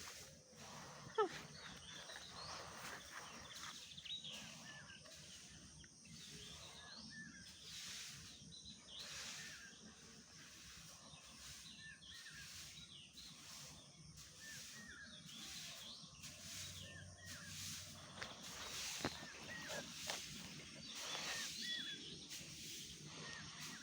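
Outdoor ambience with small birds chirping on and off, and a single sharp click about a second in.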